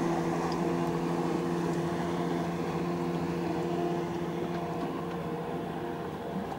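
Motorboat engine running at a steady pitch while towing a wakeboarder, over a hiss of water, easing off slightly about four seconds in.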